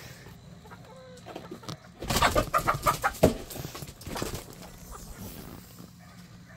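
Chickens clucking in a coop. About two seconds in, hens break into a loud squawking flurry lasting about a second and a half, followed by a shorter squawk.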